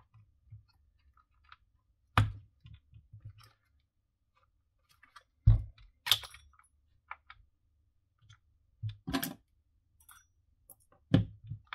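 Plastic clicks and knocks as the motor, circuit board and switch assembly of a cordless random orbital sander is worked loose from its plastic clamshell housing by hand. A handful of separate sharp knocks, the loudest about two and five and a half seconds in, with faint clicks between.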